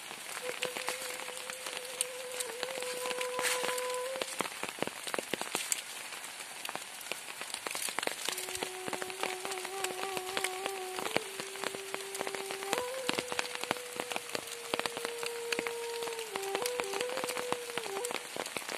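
Heavy rain falling on leaves, mud and standing water, a steady hiss thick with close ticking drops. A soft flute melody of held, slightly wavering notes plays underneath.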